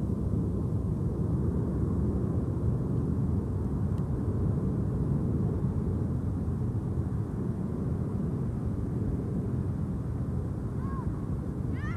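Steady low rumbling outdoor background noise, with no clear single source. A faint short call sounds near the end.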